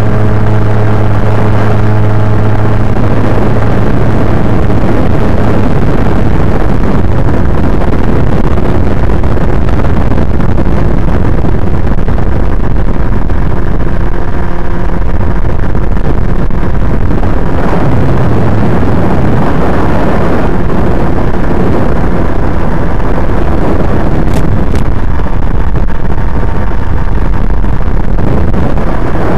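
Electric motor and propeller of a small FPV RC plane, heard loud and distorted through the onboard audio, with wind rushing past. A low buzzing motor tone is strong for the first few seconds while the motor draws about 20 A, then fades to a steady rushing noise as the throttle is pulled back.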